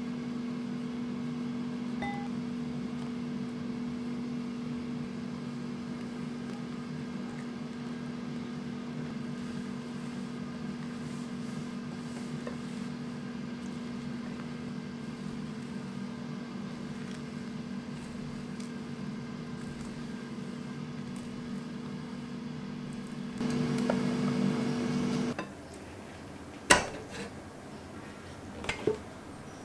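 Steady electric motor hum of a running kitchen appliance, with a low whirring noise under it. It grows louder just before cutting off abruptly about 25 seconds in. Two sharp clicks follow near the end.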